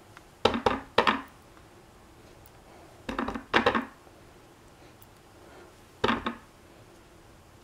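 A wood-mounted rubber stamp knocking down onto card stock on a wooden work table, in three clusters of quick knocks: about half a second in, around three seconds and around six seconds.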